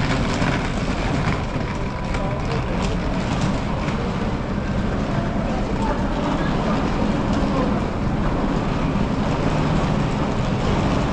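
Busy city street ambience: a steady mix of traffic and crowd chatter.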